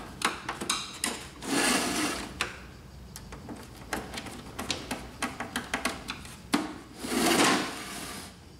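Screws being driven by a small hand screwdriver into the plastic housing of an HP Deskjet 3055A printer: a run of small clicks and knocks, with two longer stretches of scraping as the screws turn and the plastic parts are handled.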